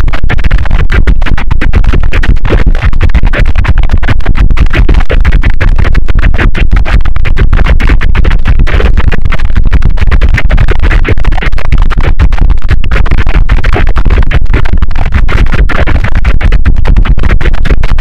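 Water pouring from a fountain, distorted by heavy audio effects into a very loud, harsh, clipped noise that crackles and stutters rapidly.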